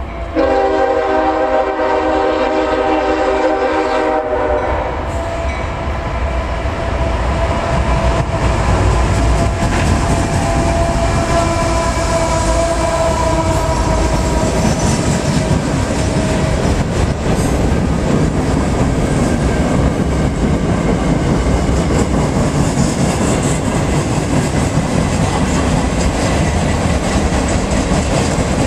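Freight train horn blowing one long chord for about four and a half seconds, then sounding more faintly for several seconds as the train passes close by. It is followed by the steady rumble and clatter of freight cars rolling past on the rails.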